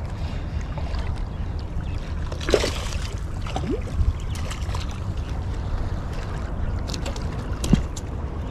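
Steady low wind rumble on the microphone, with waves lapping at the rocks. Three brief scuffs and knocks, about two and a half, four and near eight seconds in, come from footsteps on the breakwater boulders.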